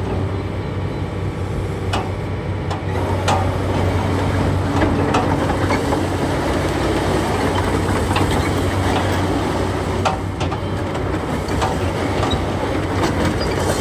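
Terex TXC140 excavator's diesel engine running steadily with a low hum, with scattered sharp clicks and knocks from the machine.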